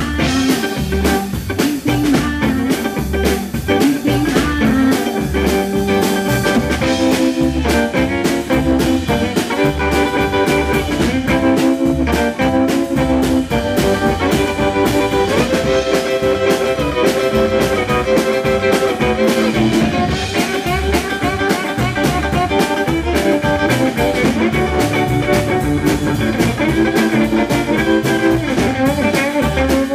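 Live blues band playing: electric guitar lead over upright bass and drums.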